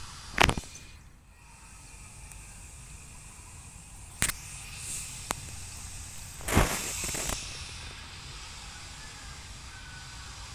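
A few sharp knocks or clicks over a steady outdoor hiss. The loudest come about half a second in and about two-thirds of the way through, the second followed by a brief rush of noise.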